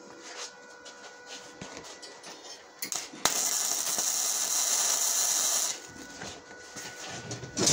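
Aluminium MIG spool gun fired for about two and a half seconds: a steady hiss that starts and stops abruptly, over a faint steady hum.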